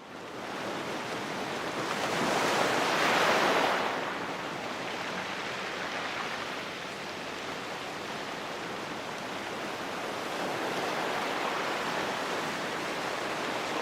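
Sea surf washing against the shore, one wave surging louder about two to four seconds in, then a steadier rushing wash.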